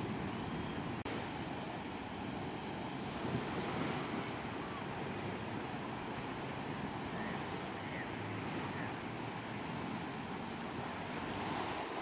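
Small waves breaking and washing up a sandy beach, a steady rushing of surf and foam, with a brief dropout about a second in.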